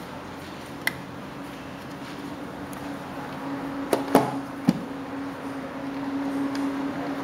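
Hinged lid of a plastic electrical enclosure being swung shut and seated, three knocks in quick succession about four seconds in, after a single sharp click about a second in. A steady low hum runs underneath and grows louder as the lid closes.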